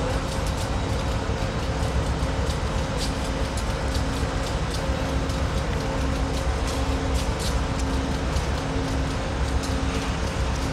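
Southern Pacific 4449 steam locomotive and its tender rolling slowly past: a steady low rumble with a constant hum and scattered light clicks.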